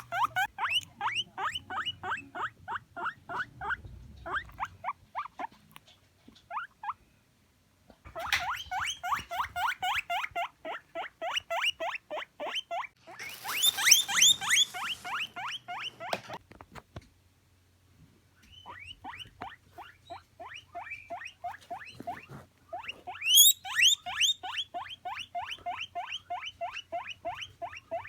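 Guinea pig wheeking: rapid runs of short, rising, high-pitched squeals, several a second, broken by two pauses of a couple of seconds, loudest near the middle.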